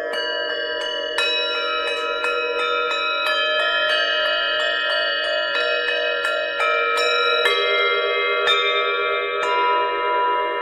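Tibetan singing bowls struck in quick succession, about two or three strikes a second, their long ringing tones piling up over a steady wavering hum.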